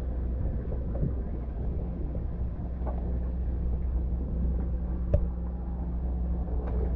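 Steady low rumble with a constant hum, as of a motor running, with a few faint short sounds over it, the clearest about five seconds in.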